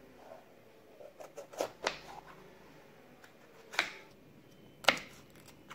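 Kitchen knife cutting a green bell pepper on a plastic cutting board: a few sharp, separate taps of the blade through the pepper and onto the board, two close together about two seconds in, then single ones near four and five seconds.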